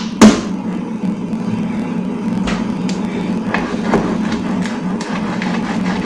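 Knocks from kitchen work: one hard, sharp knock just after the start, then lighter irregular knocks and clicks, over a steady low hum.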